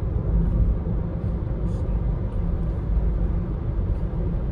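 Steady low road and tyre rumble of a Nissan Leaf electric car driving along, with a few faint high clicks.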